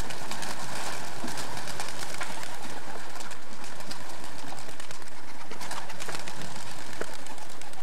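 Racing pigeons cooing in and around the loft, over a steady hiss with many small scattered clicks.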